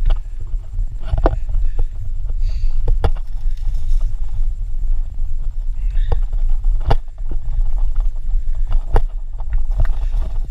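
Mountain bike rolling fast down a rough dirt singletrack: a heavy, steady low rumble of wind on the microphone and tyres on dirt, with sharp knocks and rattles from the bike over bumps, the loudest about a second, three, seven and nine seconds in.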